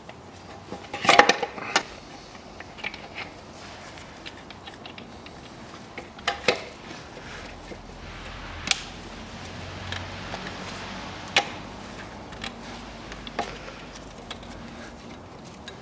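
Light plastic and metal clicks and knocks from hands fitting connectors and hoses on a diesel fuel filter housing. A quick cluster of clicks comes about a second in, then single clicks every couple of seconds.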